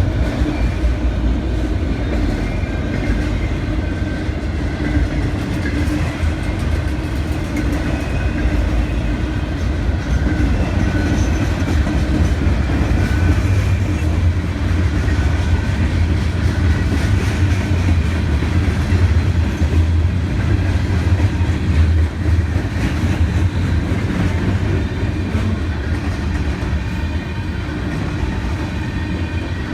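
Canadian Pacific freight train rolling past: a steady heavy rumble of wheels on the rails with the clickety-clack of the cars over rail joints.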